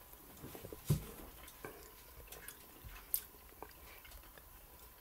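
Quiet room with faint chewing and a few soft clicks and knocks of cutlery and dishes on a table, the loudest a dull knock about a second in.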